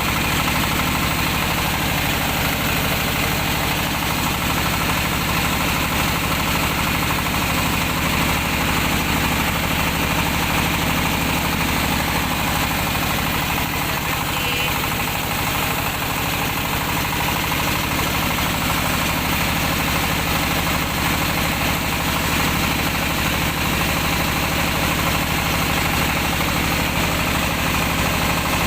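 Engine and milling machinery of a mobile rice mill running steadily at an even pace, with a dense, continuous machine noise.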